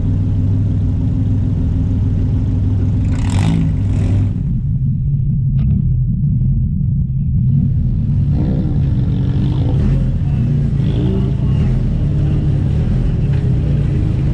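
Enduro race car's engine running with a steady low rumble, its pitch wavering, and two brief sharp noises about three to four seconds in.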